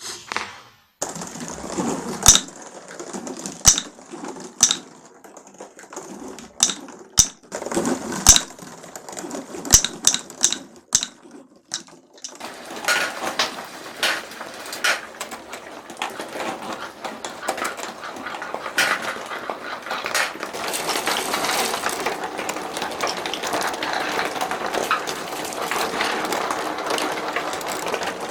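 Glass marbles in a marble run: for the first dozen seconds, separate sharp clicks as single marbles strike and drop. Then, after a sudden change, a dense continuous clatter of many marbles rolling and knocking together, building up over several seconds.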